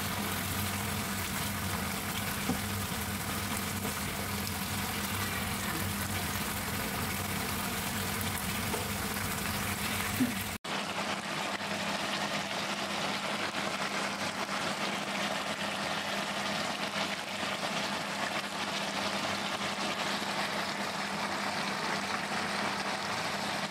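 Pan of chicken menudo stew simmering and sizzling on a gas stove: a steady hiss, with a low hum under it for the first ten seconds or so. It drops out briefly about ten seconds in, then the hiss carries on without the hum.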